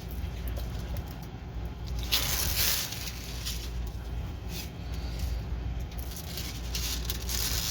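Rustling and crackling of a diamond painting kit's plastic packaging being handled, in irregular bursts that are loudest about two to three seconds in and again near the end, over a steady low hum.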